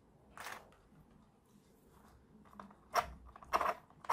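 Small 3D-printed plastic propellers and gears rattling in a plastic tub as a hand sorts through them, and the plastic parts being handled: a few short clicks and clatters, one about half a second in and several close together near the end.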